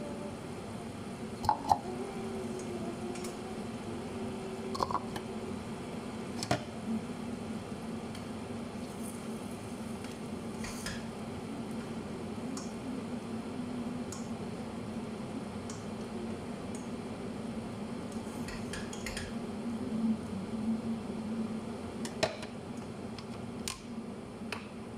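Scattered clinks and knocks of a glass pot lid and a metal utensil against a stainless steel cooking pan as the lid is lifted and the food is stirred, a few early on and a cluster about 20 seconds in, over a steady low hum.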